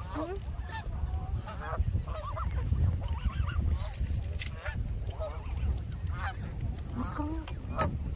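A flock of Canada geese honking, many short calls close together, over a low steady rumble.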